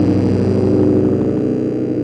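Distorted drone synth music: a loud, sustained chord of steady stacked tones with a gritty, noisy edge.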